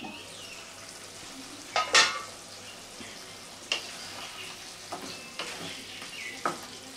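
Wooden spatula stirring a simmering yam and potato curry in a kadai, with a steady soft sizzle under it and a handful of sharp knocks and scrapes against the pan, the loudest about two seconds in.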